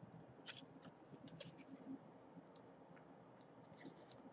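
Faint computer keyboard typing: scattered light key clicks, a cluster about half a second to a second and a half in and another near the end.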